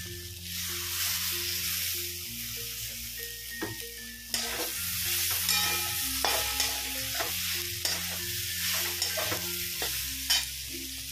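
Soya chunks in onion-tomato masala sizzling as they fry in a non-stick kadai while a flat spatula stirs them. From about four seconds in, the spatula scrapes and clicks against the pan in quick strokes.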